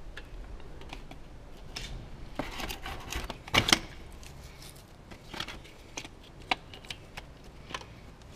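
Scattered metallic clicks and clanks of a tool and bolts being handled against steel while bolts are undone on a mini excavator's blade ram guard. The loudest clank comes about three and a half seconds in.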